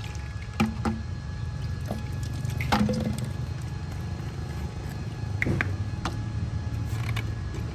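Liquid herbicide poured from a bottle into water in a plastic basin, trickling in while the spray mix is made up. A few sharp clicks and knocks of plastic bottles and scissors being handled come through it, the loudest about three seconds in.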